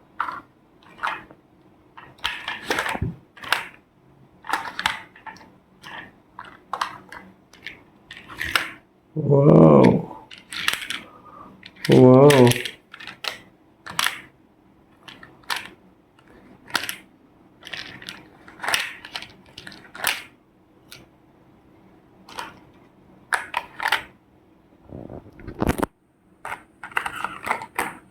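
Plastic toy vehicles being handled and knocked together: a long irregular string of short clicks and clacks. Two loud, drawn-out, wavering voice-like sounds come about a third of the way in and again a few seconds later.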